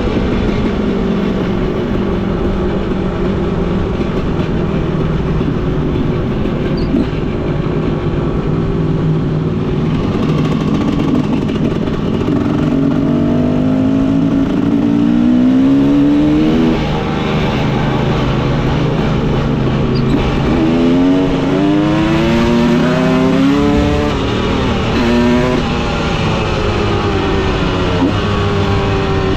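Husqvarna TE300 two-stroke enduro motorcycle engine running as the bike is ridden, its pitch climbing under acceleration and dropping back at each gear change, in several rising runs through the second half.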